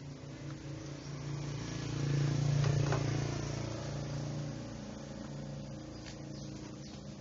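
A small engine running steadily with a low hum that swells about two seconds in and eases off again, with a few light clicks from a metal cover panel being handled.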